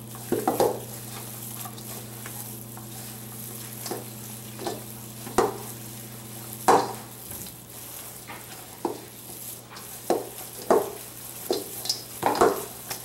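Hands squeezing and kneading a soft raw ground-meat meatball mixture in a stainless steel mixing bowl: about ten irregular, short wet squelches as the raisins are worked evenly into the meat. A steady low hum runs underneath.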